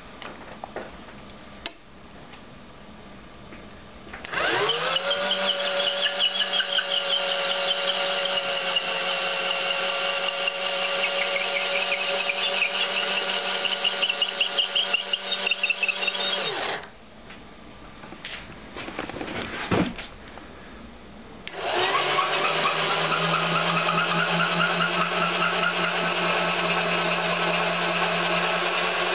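Cordless drill motor spinning a threaded rod. It winds up about four seconds in, runs steadily for about twelve seconds and stops. After a few seconds with a few clicks it starts again and runs on with a lower tone.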